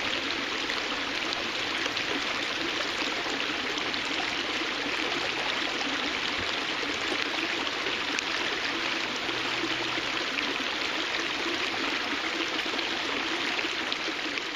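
Water of a small cascade falling over stones, a steady rushing and splashing.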